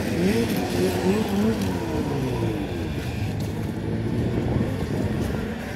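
Two-stroke snocross racing snowmobile engines revving up and down over and over, with a pitch falling away about two seconds in, then a lower, steadier engine note.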